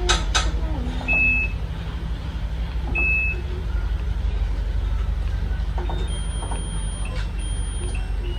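Washing machine control panel beeping as its buttons are pressed: a couple of clicks at the start, short beeps about a second in and at three seconds, then longer tones near the end, over a steady low hum.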